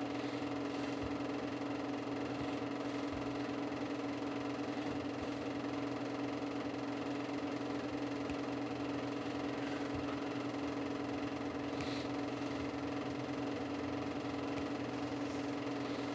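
Steady machine hum: one constant low drone with fainter higher tones above it, unchanging in level.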